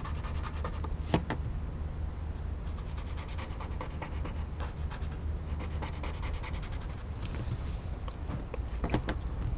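Graphic pen scratching back and forth on a paper tile in rapid short strokes, filling in a dark area with ink. There is a single louder tick about a second in.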